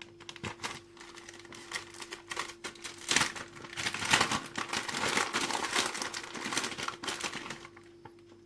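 Crinkling and crackling as frozen parsley is taken from its packet and scattered over the soup: a dense run of small crackles that busiest in the middle and stops about a second before the end.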